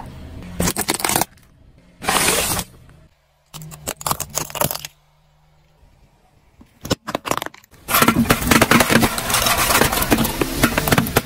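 A car tyre rolls over and crushes objects in a run of short cuts. First a plastic bottle is squashed. Then, for the last few seconds, the tyre rolls over a row of aluminium soda cans, crushing them one after another with loud metallic crunching and bursting.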